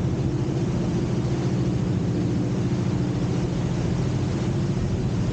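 A boat's engine running at a steady speed, a constant low drone with an even rushing hiss over it.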